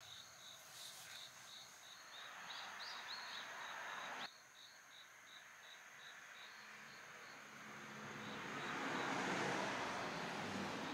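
Faint garden ambience with an insect chirping steadily at about three chirps a second. Near the end a soft rushing noise with a low hum swells up behind it.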